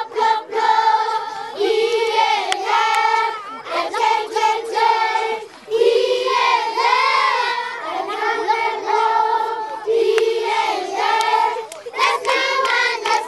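A group of high voices, women and children, singing together unaccompanied in long, held notes, with a few hand claps near the start and near the end.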